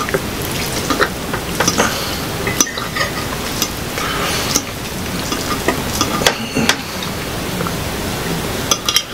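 Mukbang eating sounds: forks clinking and scraping against plates of spaghetti, with wet chewing of pasta and chicken. Scattered sharp clicks over a steady noisy background.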